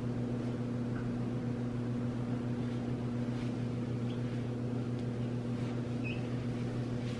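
A steady low electrical hum with a second, higher tone above it, unchanging throughout.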